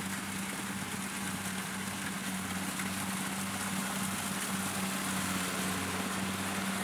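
Kubota combine harvester running steadily as it cuts rice: a constant low engine hum over a broad rushing noise from the machine, growing slightly louder as it comes closer.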